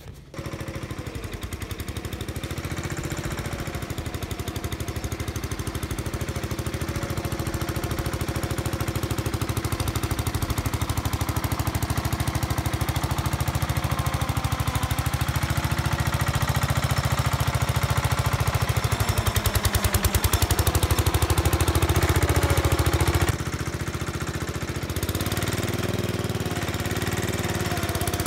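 MTD 990 lawn tractor's small air-cooled gasoline engine running hard, with a rapid clattering knock like a diesel, which it is not supposed to have; it is running on stale, cloudy gasoline. Its speed rises and falls, and about 23 seconds in it gets quieter and duller.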